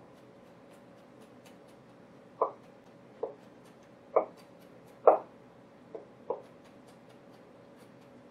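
Chef's knife chopping minced shallots on a cutting board: about seven sharp, unevenly spaced knocks of the blade against the board as the last larger pieces are minced finer.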